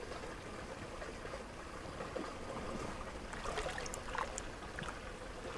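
Quiet, steady trickle of water in an outdoor hot-spring pool.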